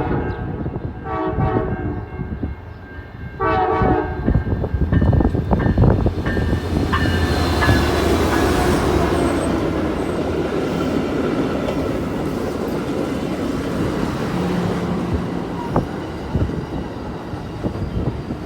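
Amtrak passenger train's horn sounding two short blasts, then the train rolling in past the microphone with a steady locomotive rumble and the clatter of wheels on the rails.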